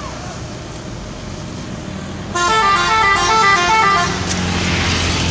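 Bus 'telolet' musical horn playing a quick tune of stepping notes for about two seconds, starting a little before halfway, over the steady low running of the bus engine. A burst of noise follows as the tune ends.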